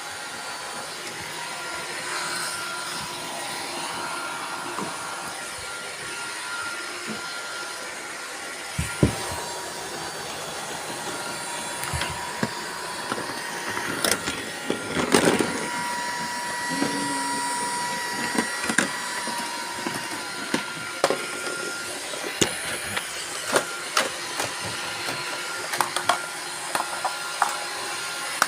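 Several robot vacuum cleaners running at once: a steady motor whir with thin whining tones, joined from about nine seconds in by frequent sharp clicks and knocks.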